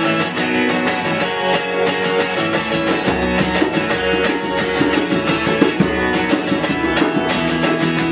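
Live music: a song's instrumental intro led by strummed guitar, with a deeper low part joining about two and a half seconds in.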